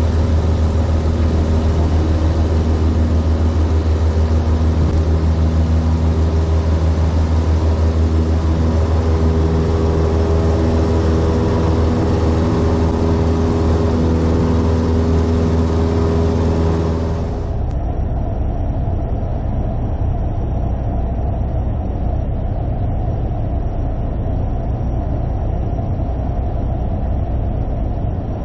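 Cessna 172's piston engine and propeller at full power, heard from inside the cockpit during the take-off roll and climb-out: a loud, steady drone. About 17 seconds in it cuts abruptly to a lower, duller drone as the engine runs at reduced power on final approach.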